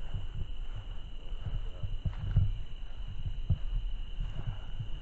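A steady, unbroken high insect chorus of crickets or katydids, under irregular low thuds of footsteps walking over grass.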